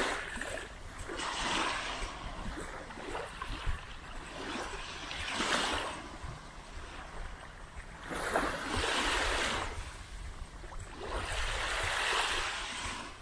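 Small waves washing onto the beach, four swells of surf a few seconds apart, each rising and falling away.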